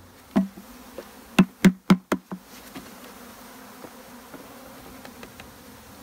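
Honey bees buzzing steadily around an open hive box, with a quick run of about five sharp knocks in the first two seconds or so.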